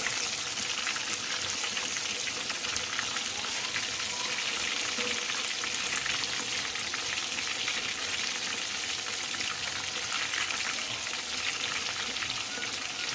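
Chicken pieces deep-frying in hot oil: a steady sizzle with fine crackling.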